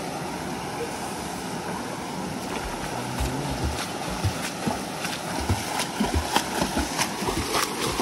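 Steady rush of small waterfalls pouring into a rock pool, with a swimmer's overarm strokes slapping and splashing the water from about three seconds in, the splashes coming closer together towards the end.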